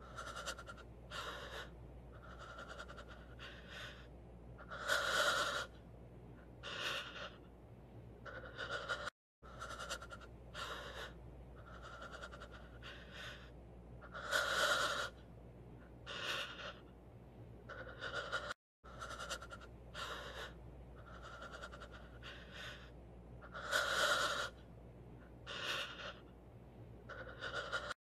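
A person panting heavily and gasping for breath, out of breath. The same few seconds of breathing play three times, each pass with one loudest gasp, broken by two brief silences.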